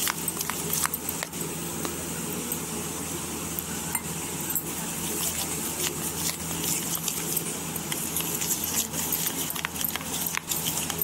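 Steel spoon stirring and scraping around a stainless steel bowl, clinking against it again and again at an uneven pace, as biscuit powder and milk are mixed into a thick batter. A steady low hum runs underneath.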